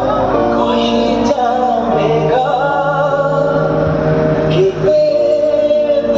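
A song with a singing voice over steady accompaniment, played loud through a DJ sound system; the voice holds long notes with slides between them.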